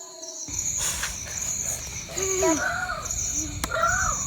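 Crickets chirping at night in a high, pulsing trill, about one pulse a second. In the second half come a few short rising-and-falling calls, one after another, and a single sharp click.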